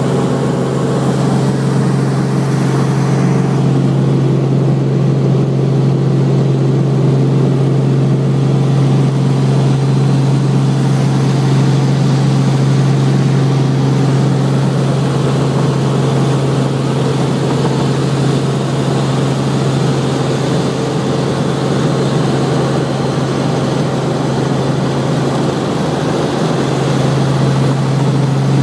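Helicopter running in flight: a steady, deep drone of engine and rotor noise with a strong constant hum.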